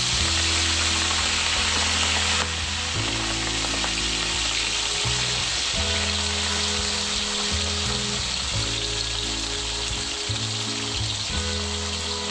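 Chicken livers and gizzards frying in hot oil in a wok: a steady, loud sizzle that is strongest for the first couple of seconds after the pieces go in, then settles slightly lower.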